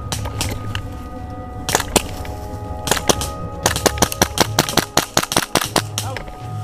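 Gas blowback airsoft pistol firing: a few scattered shots, then a fast string of about a dozen shots at six or seven a second.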